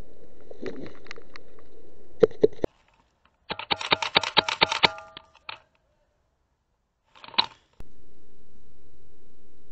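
Airsoft guns firing: two sharp shots a little after two seconds, then a rapid string of about a dozen shots over a second and a half, and a short burst about seven seconds in. A steady hiss lies beneath.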